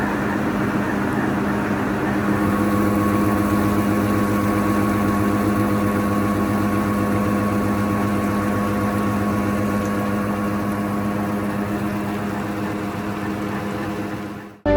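Lumsden 93ML rotary table surface grinder running, a steady machine hum with a constant tone over a rushing, noisy wash.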